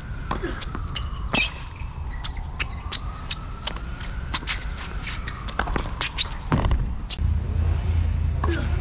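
Tennis ball bouncing on a hard court and struck by racquets: a string of sharp knocks, some close together. Behind them a faint tone slowly rises and falls, and a low rumble comes in about seven seconds in.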